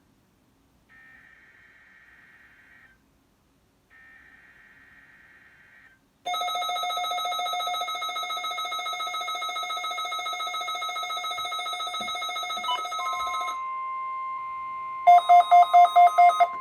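Emergency Alert System weekly test tones: two faint bursts of SAME digital header data, a screechy buzz, then about six seconds in a loud, fluttering electronic alert tone lasting about seven seconds. A steady single tone follows, then a fast string of loud beeps near the end.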